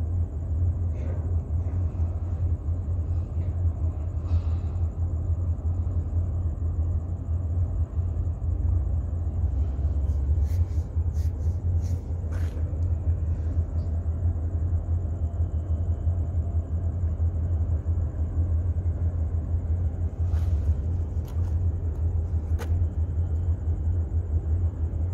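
The Evergreen container ship Ever Libra's engine running as it sails out, a deep, steady rumble heard from the shore. A few faint clicks come about halfway through and again near the end.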